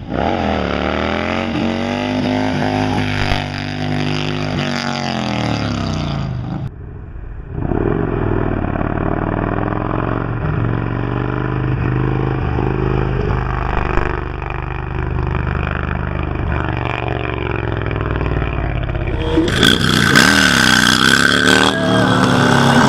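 Harley-Davidson touring bagger's V-twin engine revving hard and easing off again and again, its pitch rising and falling as the bike is lifted into a wheelie. In the last few seconds, a motorcycle engine is heard from a following bike, with wind rushing over the microphone.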